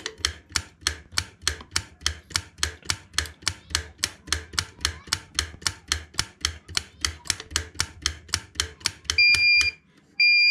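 A modular wall rocker switch clicked on and off rapidly, about four or five clicks a second, to put a Smart Node home-automation relay module into configuration mode. Near the end the module gives short, steady high-pitched beeps, twice here, the first two of its three beeps that signal it is ready for configuration.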